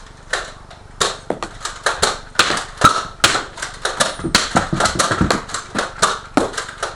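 Nerf dart blasters firing and darts hitting surfaces: a rapid, irregular run of sharp clacks and thuds, several a second, starting about a second in.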